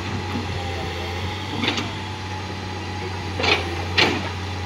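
An engine running steadily with a low hum, with three short noisy bursts over it about two, three and a half and four seconds in.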